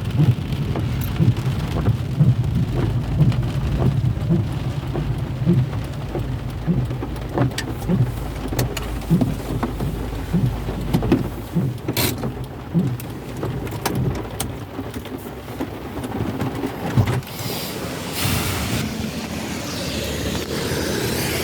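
Rain ticking and pattering on a car, over the low rumble of the car driving, heard from inside the cabin. The low rumble fades near the end, leaving a steadier hiss of rain.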